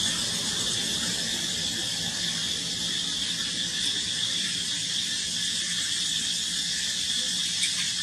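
Steady high-pitched drone of insects, unbroken and even, with no calls from the monkeys standing out.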